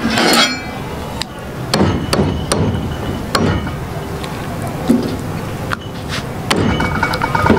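A cleaver chopping chicken on a wooden chopping block: sharp knocks at irregular intervals, about one every half second to a second, over a steady low background rumble.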